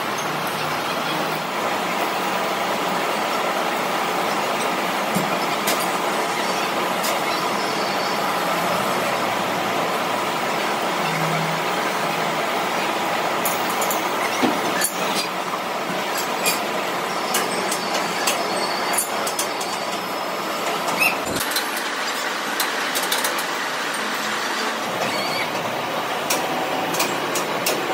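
Steady factory machinery noise, with scattered sharp metallic clicks and knocks and a thump about three-quarters through.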